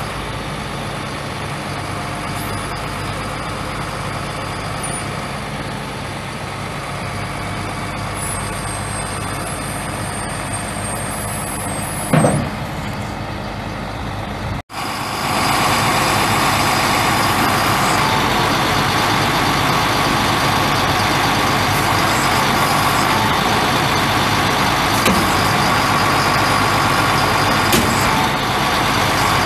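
Caterpillar 3126 inline-six turbo diesel in a Freightliner FL80 truck running steadily. About twelve seconds in there is a short, loud burst, and from about halfway the engine sound is louder and brighter.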